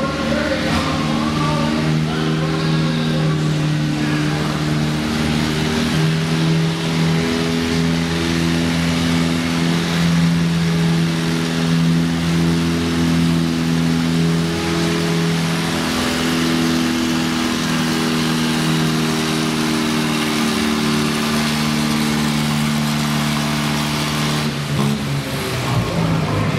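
Antique tractor engine running hard under load as it pulls a weight-transfer sled, its note holding steady. About a second and a half before the end the engine drops off as the pull ends.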